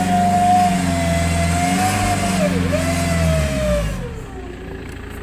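BMW E90's engine running with a strong steady whistle over it; the pitch dips briefly about halfway through, and near the end the whistle and engine both drop in pitch and the sound gets quieter. The owner takes the whistle, with the sudden loss of power, for a failed turbo.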